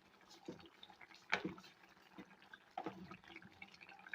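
Faint, irregular drips or plops of liquid, about five scattered over a few seconds, the clearest about a second in.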